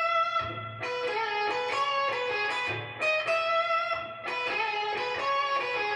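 Electric guitar playing a quick single-note lick in E, built around the B note, several times over. The notes step up and down in short repeated phrases, each note ringing clearly.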